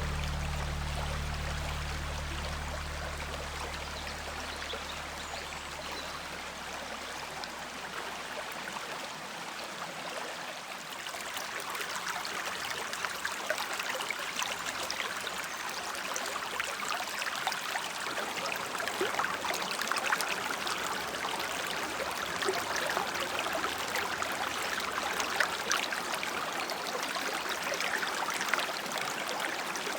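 Water of a woodland river or stream running and burbling steadily, growing louder about ten seconds in. The low tones of background music die away at the start.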